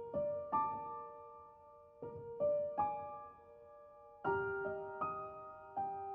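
Background music: soft piano playing slow single notes and chords that fade out after each stroke, moving to a lower chord about four seconds in.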